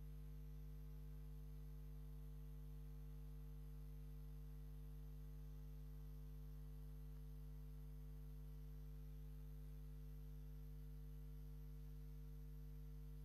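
Faint steady electrical hum, a low drone with a few higher tones above it, unchanging throughout, with nothing else heard.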